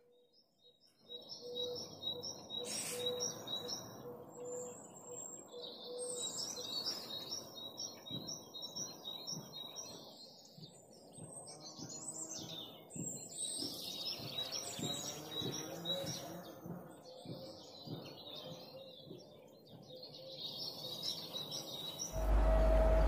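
Small birds chirping and singing over a low outdoor background noise. About a second before the end it cuts abruptly to a much louder train running.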